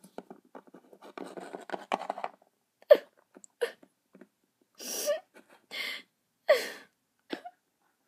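Small clicks and rustling of a plastic toy figure being handled and moved on a tabletop, then several short, separate breathy puffs.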